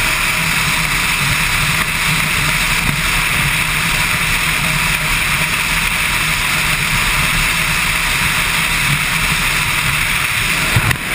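Motorcycle running at steady road speed, heard from a camera mounted on the bike: an even mix of engine and wind rush that holds unchanged throughout.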